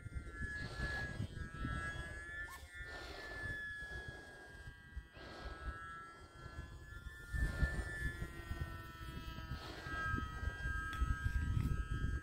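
E-flite UMX Timber X RC plane's electric motor and propeller whining overhead, the pitch wavering slightly as the throttle changes, over a low rumble of wind on the microphone.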